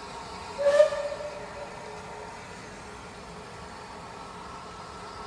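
A steam locomotive's whistle gives one short blast about half a second in, lasting about a second, over a steady faint hum.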